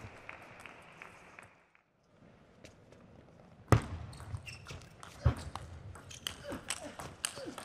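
Table tennis rally: the plastic ball clicking off the paddles and the table in a series of sharp, quick hits that begin with a loud hit about halfway in, after a brief near-silent gap.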